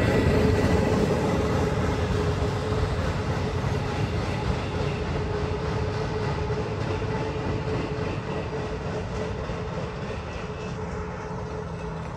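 Norfolk Southern intermodal freight train, its empty well cars rolling away upgrade, the rumble of wheels on rail fading steadily as the rear of the train recedes, with a steady hum held throughout.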